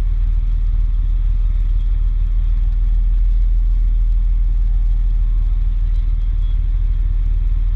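Aerial ladder fire truck's diesel engine running steadily, a loud low rumble, as it powers the pump feeding the ladder's water stream.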